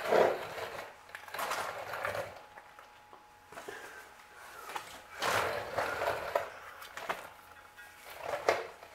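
Irregular handling and rustling noises in a few short bursts, as parts are worked on and someone moves about close by.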